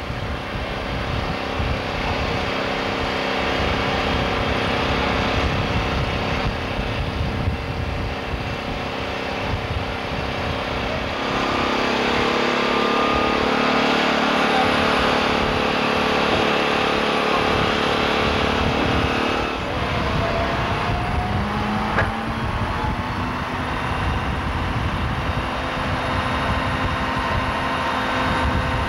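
Crane engine running steadily while it holds and lowers a heavy load. Its pitch shifts about eleven seconds in and rises again around twenty seconds in.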